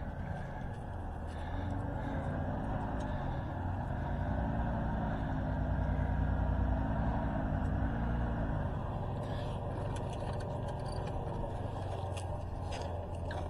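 Pickup truck engine running at low speed, its pitch rising and falling as it is driven and maneuvered, with scattered clicks and rattles in the last few seconds.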